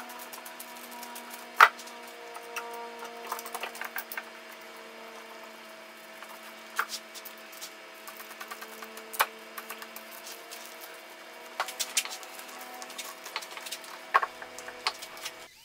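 Steel bar clamps being set and tightened on a glue-up: a few sharp clicks and clacks as the sliding jaws and bars knock against the wood and each other, the loudest about a second and a half in, over a steady low hum.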